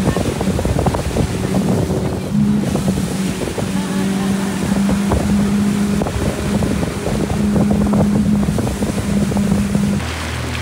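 Outboard motor of a Zodiac inflatable boat running at speed, a steady hum that wavers as the hull slaps across the water, with wind buffeting the microphone. The sound changes abruptly near the end to a lower, steadier hum.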